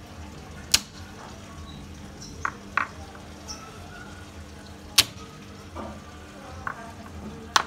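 A hard, heavy object striking a cooked mutton marrow bone (nalli) on a stone floor to crack it open: three sharp, loud knocks, about a second in, at about five seconds and near the end, with a few lighter taps between.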